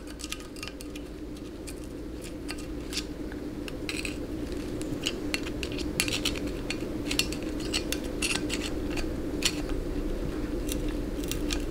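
Light, irregular metal clicks and taps of a steel pick pushing the detent regulator valves back and forth in their bore in a GM TH475 transmission valve body, checking them for drag; they move freely. A steady low hum runs underneath.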